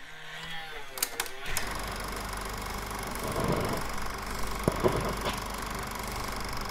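Film projector running with a steady rapid mechanical clatter and whir, opening with a few sharp clicks about a second in, as the sound of a channel logo.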